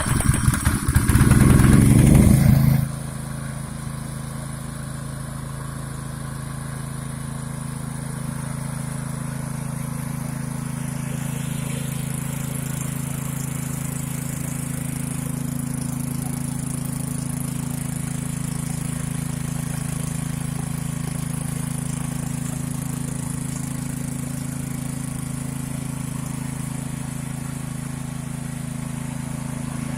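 Fortuner GX200 6.5 HP single-cylinder four-stroke petrol engine starting with a loud burst at high speed, then dropping within about three seconds to steady running at a lower speed.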